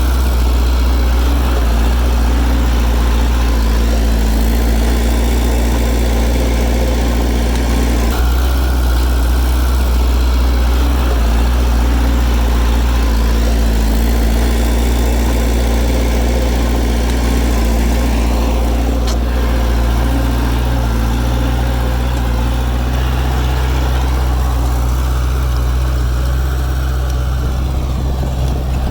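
Heavy diesel engine of earthmoving machinery running steadily, its pitch and load shifting a little about a third of the way in and again near the end.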